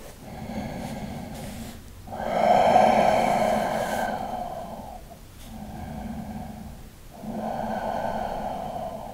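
A person breathing slowly and audibly through a held stretch: four long in- and out-breaths, the second the loudest.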